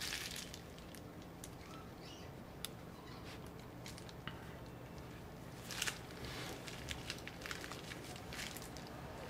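Faint, scattered small clicks and rustles of hand work on laptop parts, such as tweezers and fingers handling thin cables, with a short cluster of clicks about six seconds in.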